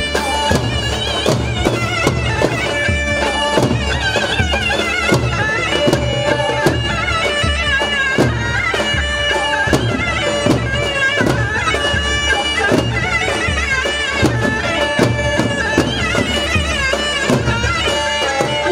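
Halay dance music: a reedy, winding wind-instrument melody with many bends and ornaments, over a steady davul drum beat.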